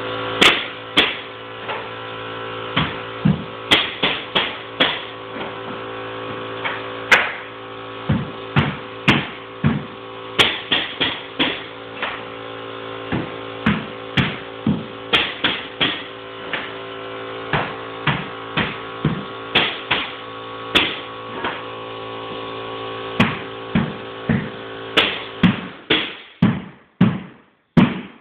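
Mallet blows on a Primatech 250 pneumatic cleat nailer driving cleats into solid white oak flooring: sharp knocks, often in quick twos or threes, about one a second. A steady hum runs under them and stops a couple of seconds before the end, leaving only the knocks.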